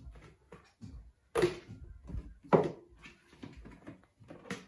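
Tupperware plastic canisters and lids being handled: a string of light plastic clacks and knocks, with two louder ones about a second and a half and two and a half seconds in.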